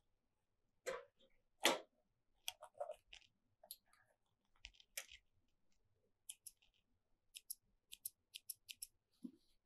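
Faint, scattered clicks and small knocks from hands working at a stopped industrial coverstitch sewing machine, drawing the fabric and thread out from under the presser foot. Two louder knocks come in the first two seconds, then a quick run of light ticks near the end.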